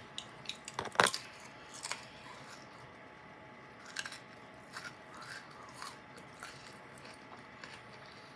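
Chewing whole grain Wheat Thins crackers with cheese: one loud crisp crunch about a second in, then scattered smaller crunches while chewing.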